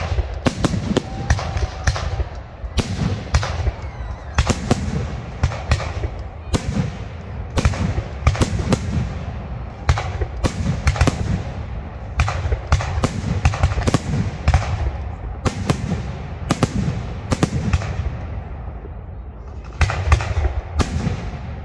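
Aerial firework shells bursting in quick succession, about two sharp bangs a second over a low rumble. The bangs ease off briefly near the end, then start again.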